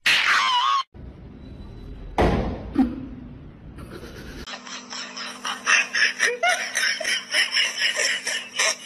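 People laughing in quick repeated bursts, starting about four and a half seconds in. Before that there is a short high wavering cry and a sharp knock.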